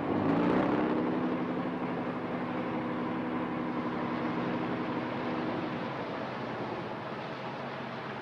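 A shrimp cutter's diesel engine coming up in pitch at the start and then running steadily under way. About six seconds in the higher tone drops away and a lower, steady hum carries on.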